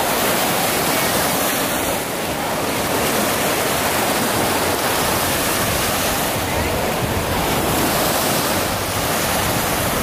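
Small freshwater lake waves breaking and washing onto a sandy shore: a steady, even rush of surf.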